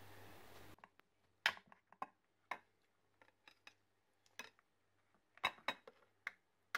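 Kitchen knife cutting down through a chocolate-glazed layer cake with crisp, crumbly layers: irregular sharp crackles and clicks, with a cluster of louder ones about five and a half seconds in.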